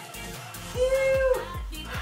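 Background music with a steady beat and a melody note held for about half a second.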